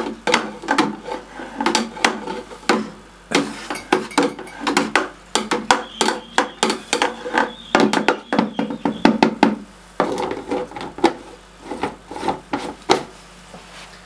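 Long brewing spoon stirring wort hard in a plastic fermenting bucket, clacking and knocking against the sides in quick irregular strokes to rouse the yeast and aerate the wort. The knocks thin out after about ten seconds as the lid goes on.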